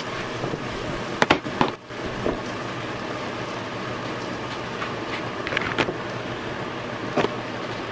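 A knife cutting watermelon on a plastic cutting board: a few sharp knocks and taps about a second in, again around six seconds and once more near the end. Under them runs a steady hiss.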